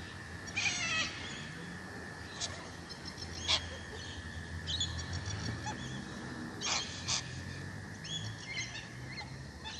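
Wild birds calling: a dozen or so short, separate calls scattered through, some in quick pairs.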